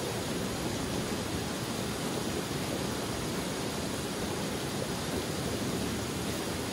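A forest stream flowing, giving a steady, even rush of water.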